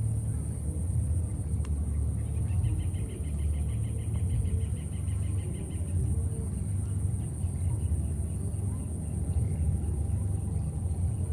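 Outdoor ambience: a steady low rumble on the microphone, with a constant high, finely pulsing buzz. From about two seconds in, a fast pulsing trill sounds for about three and a half seconds.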